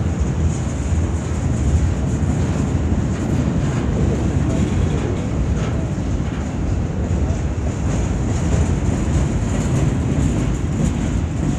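CN freight train rolling past: a steady low rumble of steel wheels on rail as empty intermodal well cars and covered hopper cars go by.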